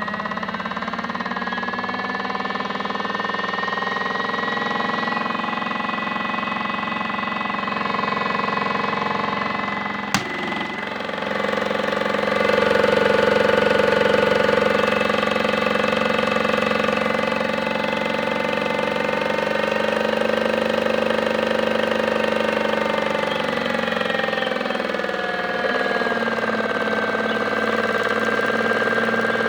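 Modified Miele W1 toy washing machine spinning, its small motor giving a steady whine of several tones. A click about ten seconds in is followed by a louder, fuller hum, and the pitch sinks a little near the end.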